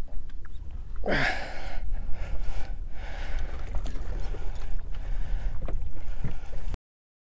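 Steady low rumble of wind and water on a small open fishing boat, with noisy bursts and knocks as a hooked shark is handled at the boat's side; the loudest burst comes about a second in. The sound cuts out abruptly near the end.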